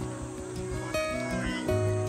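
Background music: held notes, with new notes coming in about a second in and again near the end.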